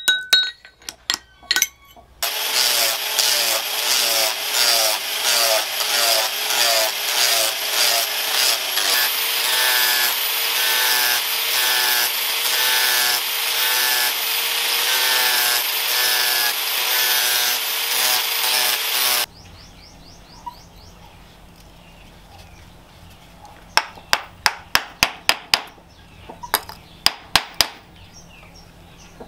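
Handheld angle grinder with an abrasive disc shaping a wooden machete handle: it runs steadily with a high motor whine for about seventeen seconds, the grinding noise pulsing as the disc is worked along the wood. Before it comes a short run of hammer blows that ring on metal, and near the end a quick series of sharp knocks.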